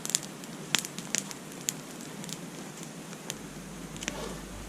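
Irregular sharp crackles and pops over a steady hiss, a few snaps a second at uneven spacing.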